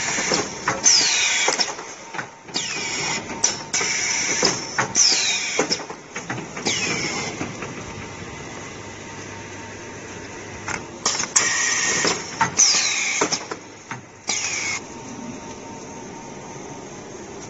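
Automatic OPP tape-roll packing machine running: loud bursts of hiss, each with a short whistle falling in pitch, come about every second or two, in two spells with a quieter steady machine noise between and after.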